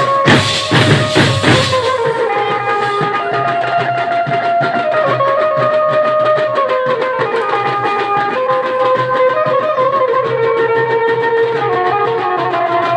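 Instrumental music: a melody of long held notes stepping up and down over a drum beat, with a loud run of drum hits in the first two seconds.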